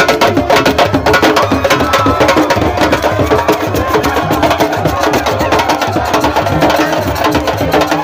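Fast, dense drumming with rapid sharp strokes, and voices chanting or singing over it.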